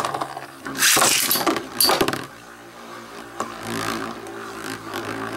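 Two Beyblade Legends spinning tops, Ray Gil 125RSF and Cyclone Herculeo 105F, with metal wheels, spinning in a clear plastic stadium. They clash and scrape loudly about a second and two seconds in, then settle into a steadier spinning whir, with another sharp clash near the end.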